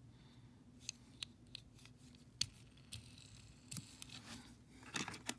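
Small die-cast metal toy cars handled in the fingers: faint, scattered clicks and light taps, a little louder near the end as one car is swapped for another.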